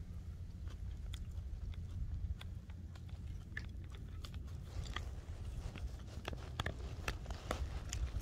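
A person chewing a mouthful of chow mein close to the microphone, with small wet mouth clicks, over a steady low rumble. The clicks come sharper and more often in the second half.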